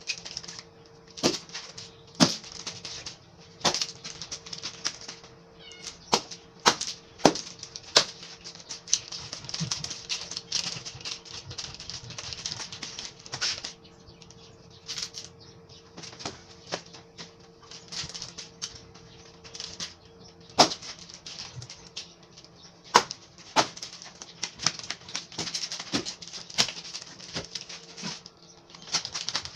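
Nunchaku swishing through the air and cracking against a tree trunk, about two dozen sharp strikes at irregular intervals.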